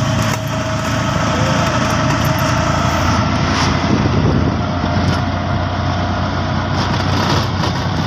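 Small engine of an auto-rickshaw (PassApp tuk-tuk) running steadily at cruising speed, heard from inside the cab, with road rumble from driving on a dirt road.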